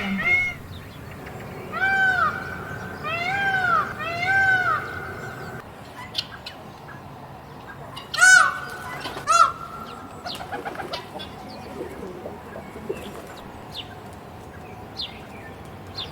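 Peacock calling: loud, arching, strongly pitched calls, three about a second apart a couple of seconds in and two more about halfway through. Faint short chirps of small birds sound between the calls.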